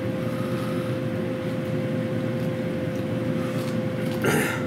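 Air fryer running with a steady fan hum and a constant tone. Near the end comes a short scrape of a table knife spreading butter on a toasted English muffin.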